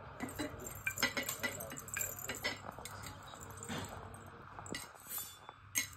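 Irregular light knocks and small metallic clinks as a small child works a wooden rolling pin over roti dough on a table, with one sharper clink just before the end.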